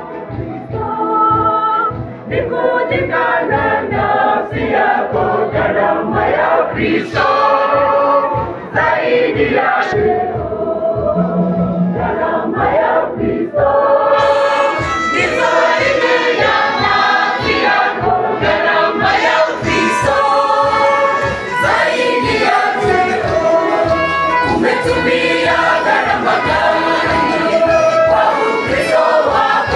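Mass choir of men's and women's voices singing a gospel song together.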